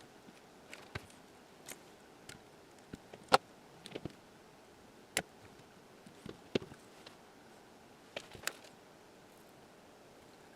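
Scattered small clicks and knocks of tools and parts being handled on a workbench, irregular and a few seconds apart, the sharpest knock about a third of the way in.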